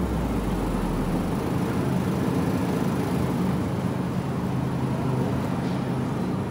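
Steady low hum of refrigerated meat display cases over general store background noise.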